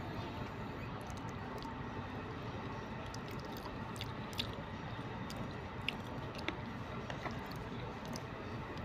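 A person chewing a mouthful of rice and boiled pork close to the microphone. A few short, sharp clicks come from a plastic spoon against a plastic food container, about four and six seconds in, over a steady background hiss.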